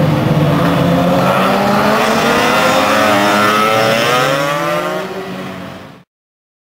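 Two-stroke race-scooter engines at full throttle on the track, their pitch climbing for a few seconds as they accelerate. The sound then fades and cuts off abruptly about six seconds in.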